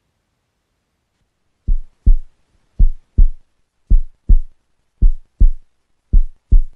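Heartbeat sound effect: deep double thumps, lub-dub, five pairs a little over a second apart, beginning a bit under two seconds in.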